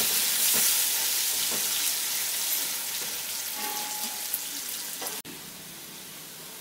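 Diced potatoes sizzling as they brown in hot mustard oil in a kadai, with a spatula stirring them early on. The sizzle suddenly gets much quieter about five seconds in.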